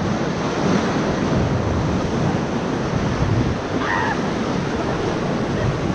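Ocoee River whitewater rushing loud and steady around a raft, with wind and water noise on the microphone.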